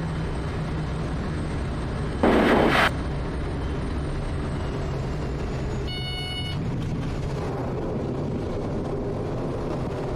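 Quest Kodiak's turboprop engine and propeller running steadily in the cabin through the final seconds of the approach and the touchdown on the airstrip. A brief loud burst of noise comes about two seconds in, and a short electronic tone sounds about six seconds in, around touchdown.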